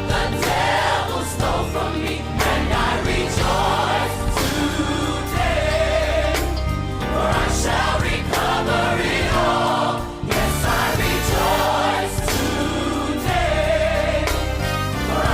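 Gospel-style choir music: several voices singing over a steady bass and beat, with a short break about ten seconds in.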